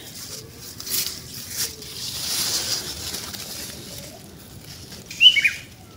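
Dry sweet corn leaves rustling and crackling as a hand brushes through the plants and grips a corn stalk. A short high falling chirp sounds near the end.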